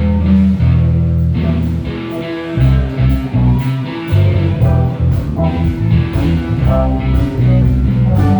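Live band playing an instrumental passage: guitar lines over a bass guitar line and a steady drum beat.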